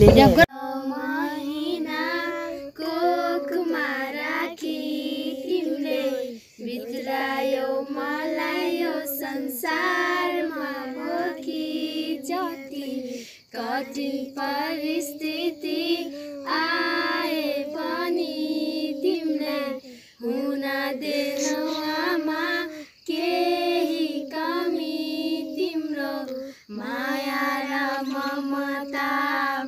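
A group of children and young women singing a song together, in sustained phrases broken by short pauses every few seconds.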